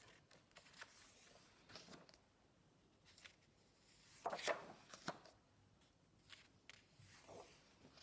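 Paper pages of a softcover colouring book being turned and smoothed down by hand: soft rustles and light ticks, the loudest swish about four seconds in and another near seven seconds.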